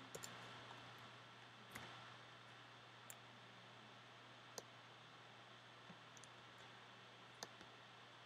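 Near silence with a faint steady hum, broken by a handful of faint, irregular clicks from a computer keyboard and mouse during code editing.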